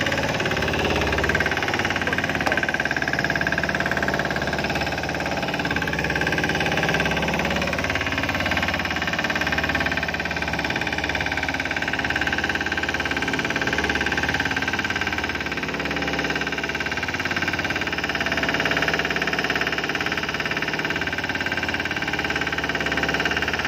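A fishing boat's diesel engine running steadily, an even, unbroken drone.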